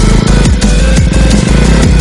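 Electronic dance music of the drum and bass kind, with a heavy bass line and a steady, fast beat.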